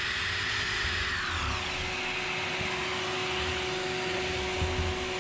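DeWalt 5-inch sander running steadily against wood, with a shop vacuum hooked to its dust shroud running alongside. The high whine drops in pitch about a second and a half in.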